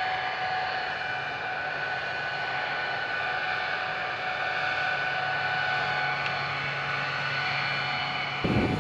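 Jet aircraft engines running with a steady whine: several high tones over a constant hiss. Near the end it cuts abruptly to a louder, fluctuating low rumble.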